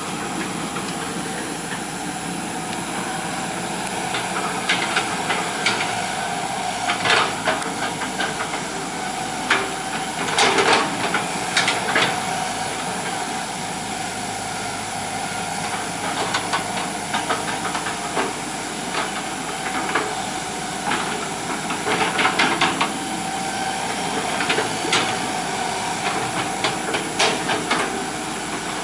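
Hitachi EX120 hydraulic excavator working: a steady engine and hydraulic hiss with a held whine, broken every few seconds by clusters of scraping and knocking from the bucket on soil and rock.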